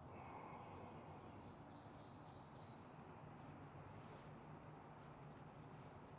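Near silence: faint background with a few faint high chirps in the first few seconds.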